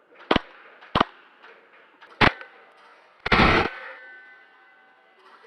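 Airsoft gun firing three sharp single shots, then a brief rapid burst about three seconds in.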